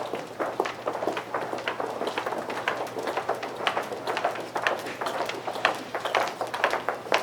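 Office hallway ambience: many overlapping footsteps clacking on a hard floor, several per second and irregular, over a faint steady hum.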